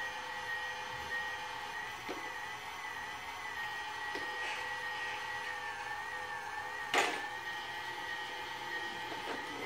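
Toy vacuum cleaner running, with a steady electronic whine that wavers slightly in pitch. A single sharp knock about seven seconds in.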